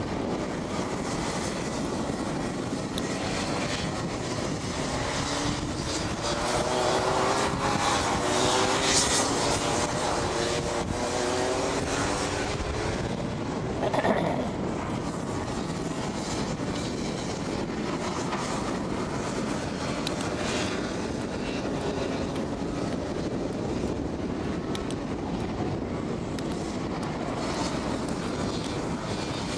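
Rotax Max 125 cc two-stroke kart engines racing round the circuit, their pitch rising and falling as the karts accelerate and brake through the corners, loudest about seven to ten seconds in. A brief louder sound cuts in about fourteen seconds in.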